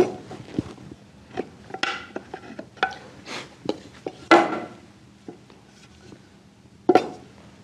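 Hand chisel paring a timber joint, with irregular sharp wooden knocks and short scrapes, then a louder wooden knock near the end.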